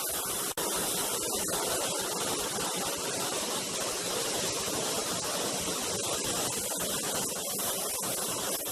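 Steady rush of a large waterfall pouring into a pool, an even hiss of falling water, with a brief gap in the sound about half a second in.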